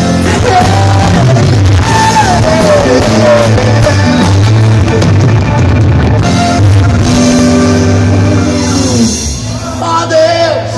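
A live band playing the opening of a song: a melody line that glides up and down over a steady bass and band accompaniment, easing off briefly about nine seconds in before carrying on.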